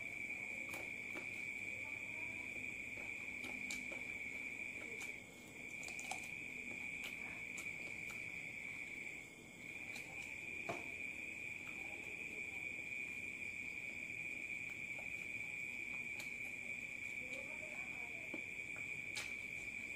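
Steady, high-pitched insect chirring that cuts out briefly twice, over faint clicks and smacks of someone eating spicy chicken feet with their fingers.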